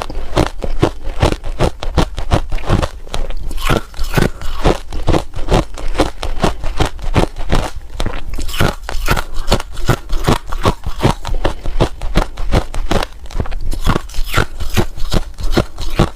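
Ice being bitten and chewed close to the microphone: a fast, unbroken run of sharp crunches, about four a second.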